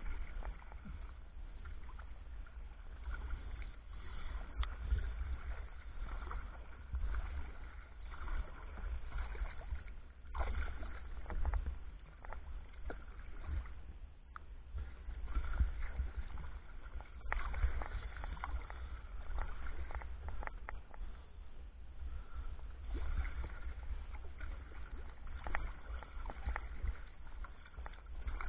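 Kayak paddling with a wooden Greenland paddle: irregular splashes and drips as the blade dips in and lifts out of the water, over a steady low rumble.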